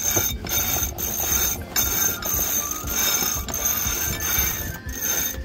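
Sailboat sheet winch ratcheting as a line is cranked in while the headsail is trimmed, in runs broken by short pauses between strokes.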